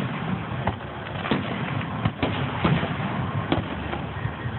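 Aerial fireworks shells bursting: about half a dozen sharp bangs at uneven spacing over a steady background rumble.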